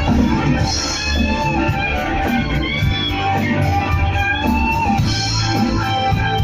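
Instrumental rock music: guitars over a steady drum beat.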